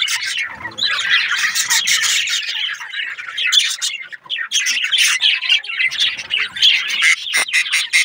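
A flock of budgerigars chattering and squawking loudly without a break. Near the end this turns into a run of sharp chirps repeated about four times a second.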